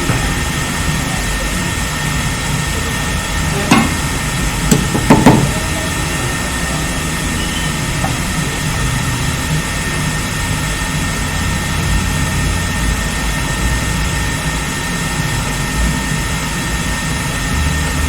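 Steady fan-like whir of bench equipment, with a few short handling knocks about four and five seconds in.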